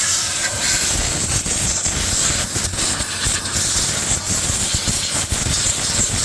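Compressed-air blow gun blasting in one long continuous burst: a loud, steady hiss with a rough low rumble under it.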